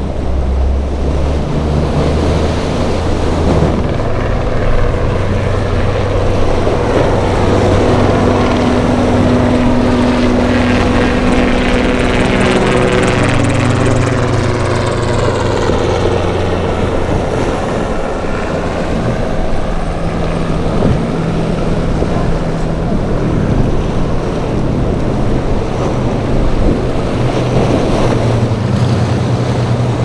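Powerboat engines running at speed through rough water, with the wash and splash of breaking waves. A steady engine drone runs throughout, and its pitch sweeps as a boat passes close near the middle.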